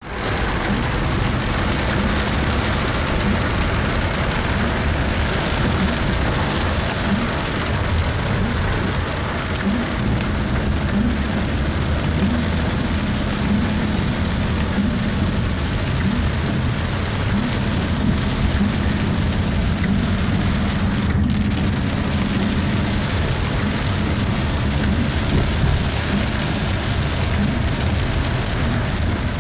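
Heavy rain drumming steadily on a car's roof and windshield, heard from inside the cabin, over the low hum of the car's running engine.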